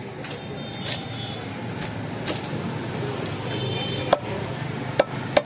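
Silver carp being cut on a fixed boti blade: a few short, sharp cracks as the blade goes through the head and fin bones, the loudest about four and five seconds in. Under them is a steady din of market and traffic noise.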